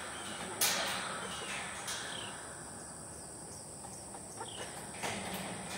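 Outdoor ambience: a steady high insect drone with a few short, downward bird chirps, and a brief rustling noise about half a second in.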